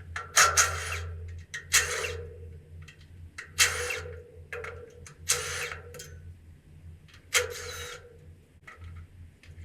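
Hand ratchet wrench clicking in five short strokes, working bolts off an engine during teardown, over a steady low hum.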